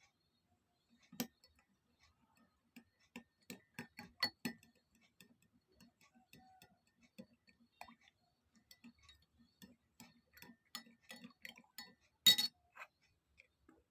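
A spoon stirring in a cup, clinking against its sides about two to three times a second, with a faint ring. This dissolves the honey into the hot spiced drink. One louder clink comes near the end, like the spoon tapped on the rim.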